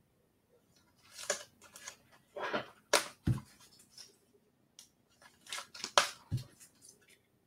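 Trading cards and plastic card holders being handled and sorted: irregular rustles and sharp clicks, with a low thump twice.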